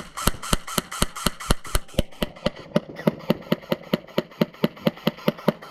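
Airsoft gun firing a long, steady string of shots, about six a second, without a break.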